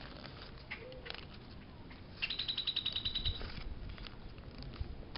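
Paper being folded and creased by hand, with faint crinkles, while a bird gives a rapid high-pitched trill of about a dozen notes lasting about a second, near the middle.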